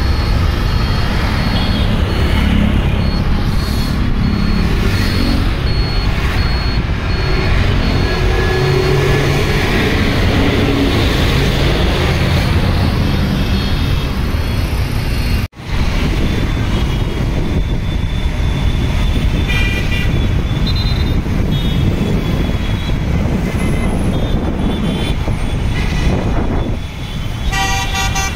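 Road traffic on a wet road: a steady rumble of engines and tyre hiss from passing cars, vans, motorbikes and auto-rickshaws. A few short horn toots sound in the second half, the last just before the end.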